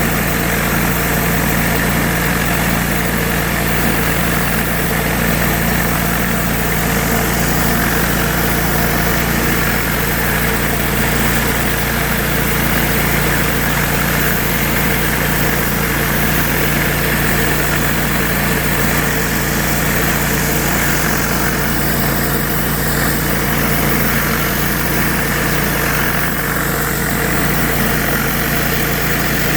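Pressure washer's engine running steadily under the even hiss of water spraying from a surface cleaner.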